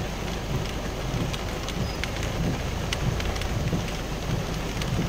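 Rain falling on a vehicle's roof and windshield, heard from inside the cab, with scattered sharp ticks of single drops and a low rumble underneath.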